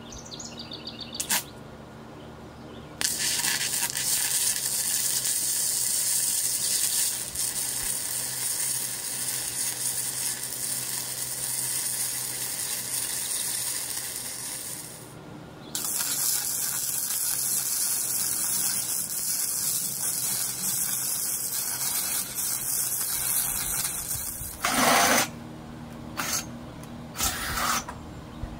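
Electric arc welding on steel angle iron: a steady crackling hiss in two long runs of about ten seconds each, with a short break between them, then a few short tack bursts near the end. A low steady hum runs underneath.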